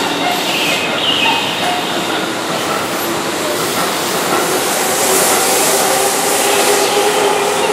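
Keihan electric train running close past a station platform at speed: a steady loud rush of wheels on rail, with faint whining tones over it.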